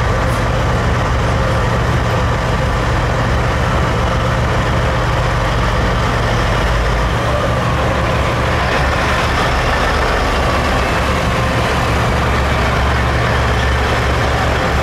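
Western Star truck's diesel engine running as it drives slowly past, its sound shifting about halfway through as it comes alongside, over other heavy trucks idling.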